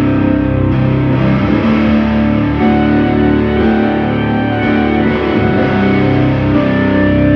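Live drone music: a loud, sustained wall of distorted electric guitar from a Travis Bean TB1000S, run through effects, with Casio keyboard chords. The held notes shift every second or two.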